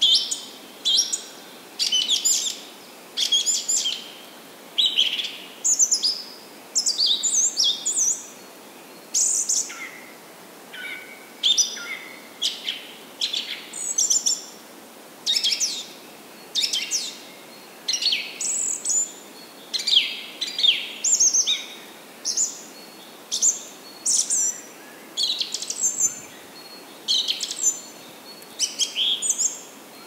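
Small birds chirping and singing: a continuous run of short, high calls and trills, one or two a second.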